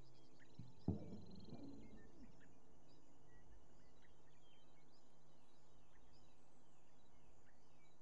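A sustained low drone keeps sounding from the bass rig, with faint bird-like chirps over it. About a second in, a single knock and a brief ring of strings as the electric bass is taken off and set down on its stand.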